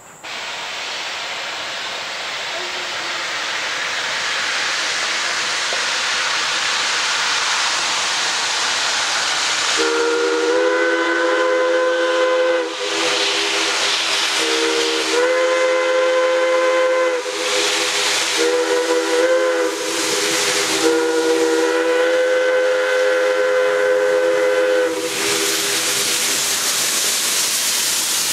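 Chime steam whistle of the 0-6-0 steam locomotive Ohio Power & Light No. 3, sounding a chord of several notes in four long blasts, starting about ten seconds in, as a grade-crossing warning. Under it, a steady hiss of steam.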